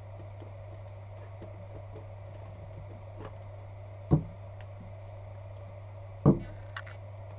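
Two dull knocks about two seconds apart as a cardboard trading-card box is handled and set down on a table, the second followed by a light click, over a steady low hum.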